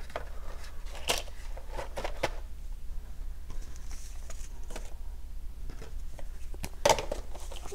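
Light taps and rustles of cardboard and paper as a board game's box insert and rulebook are handled, with a sharper knock about seven seconds in.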